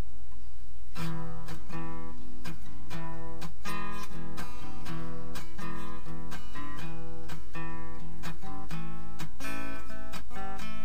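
Acoustic-electric guitar strummed in a steady chord pattern, starting about a second in, with a steady low hum underneath.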